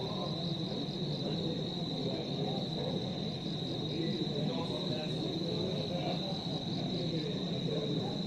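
Crickets chirping: a steady high trill that pulses evenly, over a continuous low rushing background noise.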